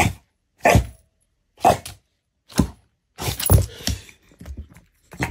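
Young pit bull-type dog barking in short, separate barks about once a second, with a quicker run of several barks a little past the middle, while it plays at a ball.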